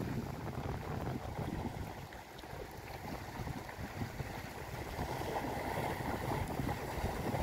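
Wind noise on the microphone over the wash of sea waves on rocks, the surf getting louder about five seconds in.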